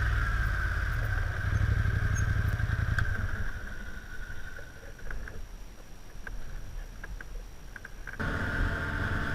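ATV engine running on the trail. The engine sound drops off about three and a half seconds in, leaving a quieter stretch with a few scattered ticks, then returns abruptly near the end.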